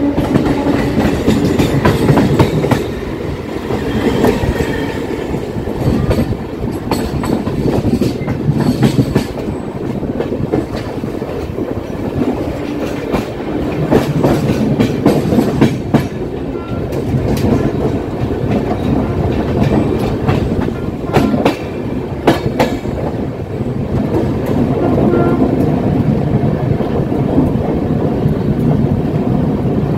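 Running noise of an Indian express passenger train heard at an open coach door: a steady rumble with wheels clattering over rail joints in dense, uneven clicks.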